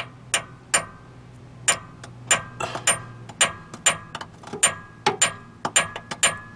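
Hammer striking a screw extractor into a drilled-out broken exhaust manifold bolt on a GM 454 V8. The hammering is a dozen or more sharp metal-on-metal blows at an uneven pace of about two a second, each with a short bright ring.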